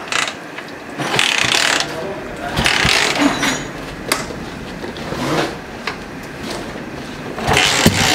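Simson AWO 425's 250 cc four-stroke single being kick-started: several kickstarter strokes, each a swell of ratchet and mechanism noise as the engine is turned over, until it fires near the end.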